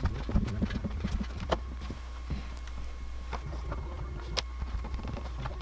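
Light irregular taps and knocks of hands working modelling clay and pressing it around a small wooden mold box on a wooden workbench, a few sharper clicks among them, over a steady low hum.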